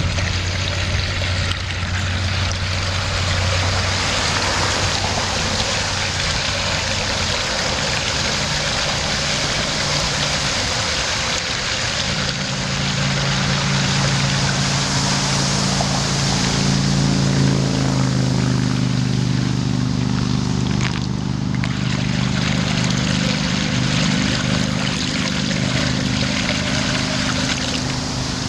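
Rainwater draining down a whirlpool into a culvert: a steady noise of pouring water. Underneath runs a low steady hum that shifts higher and grows fuller about twelve seconds in.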